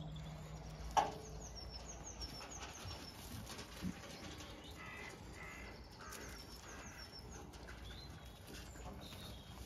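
Faint birdsong: many small, high chirps of birds singing at dawn, with one sharp knock about a second in.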